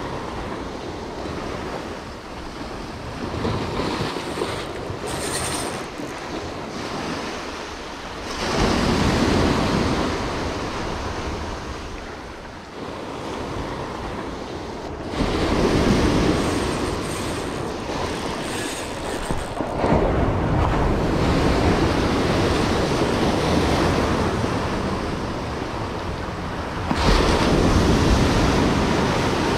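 Ocean surf breaking on a rocky shore, the wash of the waves rising in several loud surges as successive breakers come in.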